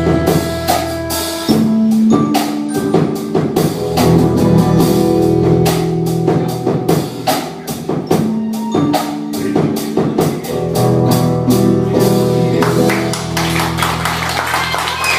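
Band music without singing: a drum kit keeps a steady beat under held bass and chord notes. The held notes thin out over the last couple of seconds.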